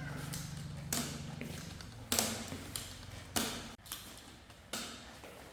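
Four dull knocks about a second apart, over a low steady hum that fades out in the first two seconds.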